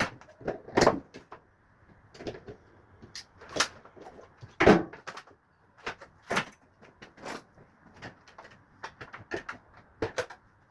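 Irregular knocks and clatter of a washing machine's drive motor being worked loose and pulled out, with the loudest clunks about a second in and just under five seconds in.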